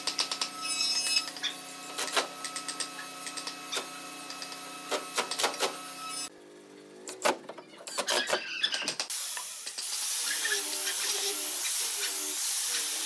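A run of sharp clicks and a few knocks as a wooden wardrobe door is fitted on its hinges; about ten seconds in, an electric random orbital sander starts and runs steadily with a hiss against the wood panel.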